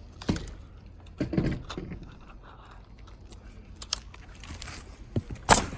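Pneumatic roofing nail gun firing nails through asphalt shingles: a few sharp separate shots spread apart, the loudest near the end.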